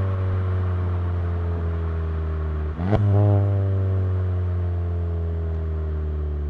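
VW GTI MK7's turbocharged 2.0-litre four-cylinder, running through an APR downpipe, with the revs falling slowly as the car coasts. About three seconds in, the pitch dips, then jumps up with a click, which fits a quick downshift, and falls slowly again.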